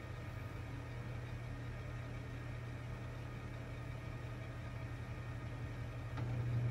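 Metal lathe running with a steady low hum, its spindle turning a chrome hydraulic cylinder rod during one more single-point threading pass, cut dry. The hum gets louder about six seconds in.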